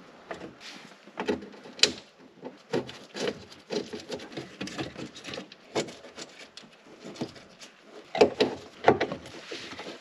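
Scattered light clicks, knocks and rustling from gloved hands working parts inside a Porsche 944's steel door, positioning the window motor mechanism to line up its bolt holes. The knocks come at irregular intervals, with a sharper click about two seconds in and a cluster of louder knocks near the end.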